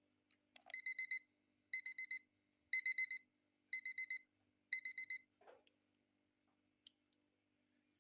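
Electronic alarm beeping in quick groups of four, one group about every second, five groups in all before it stops. A click comes just before the beeping starts.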